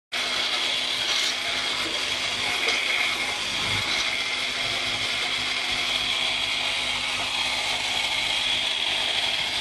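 Toy vacuum cleaner's small motor running with a steady high whirr, with a few light knocks as it is pushed about.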